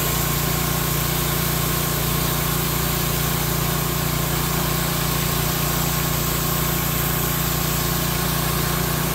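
Pressure washer running steadily: a steady mechanical hum from its pump under the loud hiss of the high-pressure jet spraying water across paving stones and their joints.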